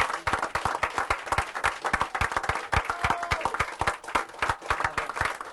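A room full of people applauding, with sharp individual claps from people standing right beside the microphone.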